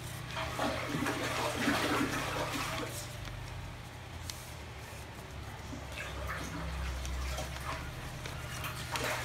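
A sheet of paper rustling and crinkling as it is folded by hand into a paper boat, busiest in the first few seconds, over a steady low hum.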